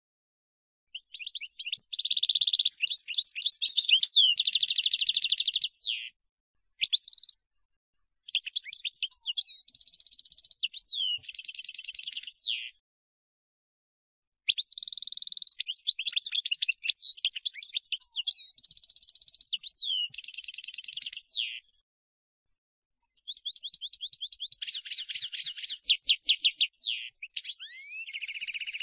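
European goldfinch singing: four phrases of high twittering, rapid trills and repeated notes, separated by short gaps of silence.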